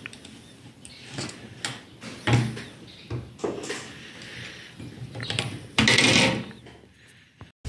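Wire grill grate, wired to a mousetrap's snap bar, clinking and knocking against a wooden table as it is tipped up and laid back down. A sharp knock comes a couple of seconds in, and a louder, longer metal rattle about six seconds in.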